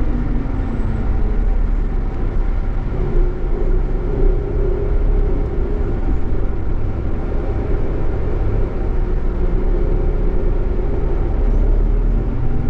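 Scania K420EB coach's rear-mounted inline six-cylinder diesel engine and road rumble, heard from inside the passenger cabin while under way. The engine note falls at the start, holds fairly steady through the middle, and begins to climb again near the end.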